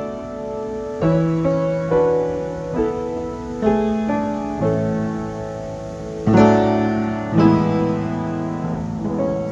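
Piano playing a slow service postlude: chords struck one after another, roughly once a second, each ringing on and dying away.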